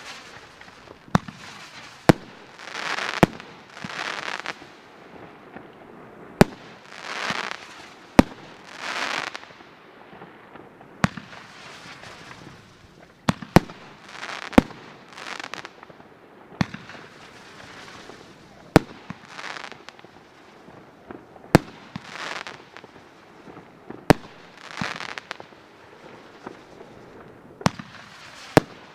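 Consumer aerial fireworks going off from fuse-linked mortar tubes. A sharp bang comes every second or two, many followed by about a second of crackling hiss.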